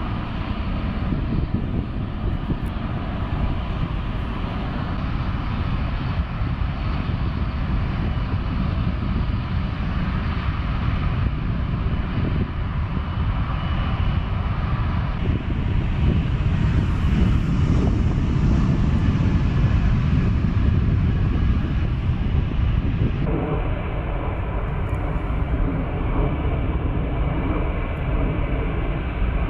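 Jet engines of taxiing airliners, an Airbus A350-1000 and then an Airbus A380, running at taxi power: a steady low rumble with a faint whine. The sound changes abruptly about 15 and 23 seconds in.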